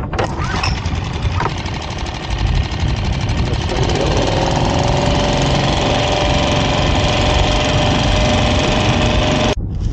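Dinghy's small outboard motor running and picking up speed as the boat moves off. Its pitch rises about four seconds in and then holds steady. The sound cuts off suddenly near the end.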